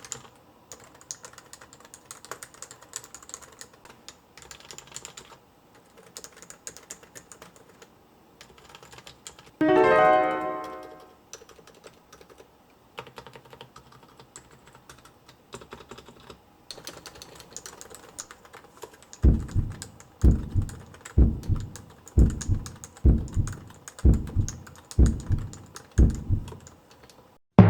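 Typing on a Topre electrostatic-capacitive keyboard, a steady patter of soft keystrokes. About ten seconds in, a short musical chord sounds and fades; in the last several seconds a run of deep drum beats comes faster and faster.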